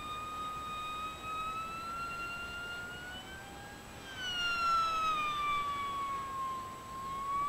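Electric motor and propeller of a radio-controlled model airplane whining steadily in flight as it passes overhead. The pitch creeps up, then drops off steadily after about four seconds as the plane goes by and flies away. It is loudest just as the pitch starts to fall.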